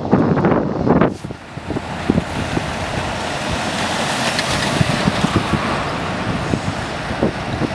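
Steady rushing noise of wind and road traffic, with a louder, rougher gusting for about the first second.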